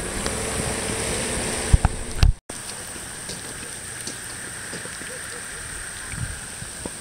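Steady outdoor rushing noise on a phone microphone, with two handling knocks about two seconds in, then a brief dropout, after which the background is a quieter steady hiss.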